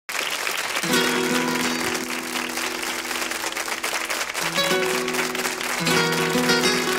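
Audience applause over a live band's instrumental introduction to a copla: held chords come in about a second in and change twice.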